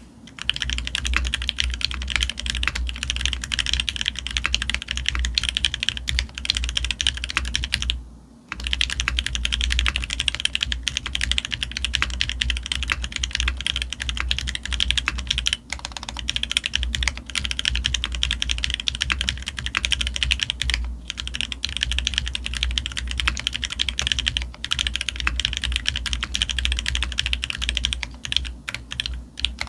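Continuous rapid typing on a custom F1-8X mechanical keyboard: brass plate, leaf-gasket mount with Viton O-rings, Mashmellow R4 switches lubed with Krytox 205g0, and Leopold keycaps. The typing stops briefly about eight seconds in, with a few shorter breaks later.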